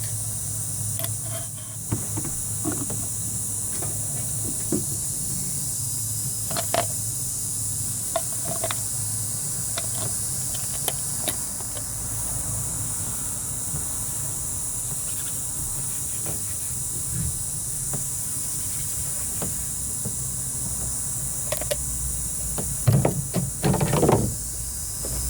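Light clicks and knocks of a plastic motor-oil bottle and a cut-plastic-bottle funnel being handled while oil is poured into the engine, over a steady hiss and low hum. A short run of louder knocking comes near the end.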